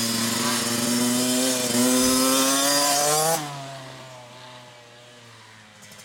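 A child's small dirt bike engine revving higher and higher as it accelerates up the woodland trail. A little past three seconds in, as the bike passes close by, the pitch drops sharply and the sound falls away, fading as the bike rides off.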